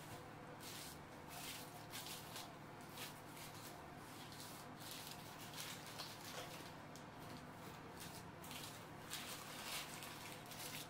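Faint, irregular crinkling and rustling of paper wrapping being pulled off a block of cheese, over a low steady hum.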